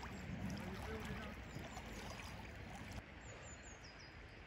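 Faint steady wash of river water, with a few brief high bird chirps a little over three seconds in.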